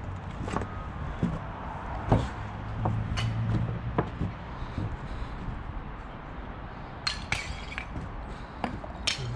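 Irregular knocks and clinks of footsteps on wooden scaffold boards strewn with broken clay roof-tile fragments, with a cluster of clicks about seven seconds in.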